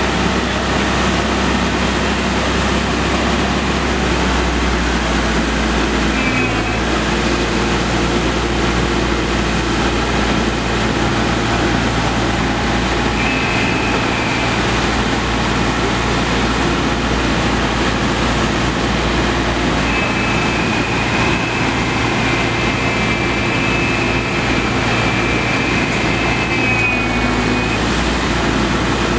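Water rushing and churning into a canal lock chamber as it fills and lifts the boat, a steady loud rush with a low hum beneath it. A thin high squeal comes and goes a few times, longest in the second half.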